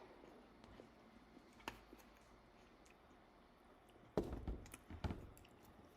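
Faint eating sounds: chewing and small clicks, with a louder cluster of clicks about four to five seconds in.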